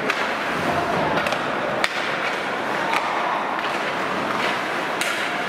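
Ice hockey play: skates scraping the ice over a steady rink hum, broken by a few sharp cracks of sticks and puck, the loudest about two seconds in.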